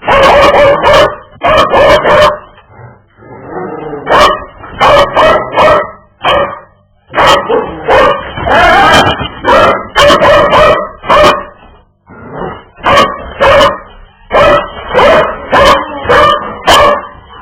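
A dog vocalizing loudly over and over in short pitched bursts, in clusters with brief pauses between them, with sharp clicks mixed in. These are its reactions to a micro drone bumping into its rear.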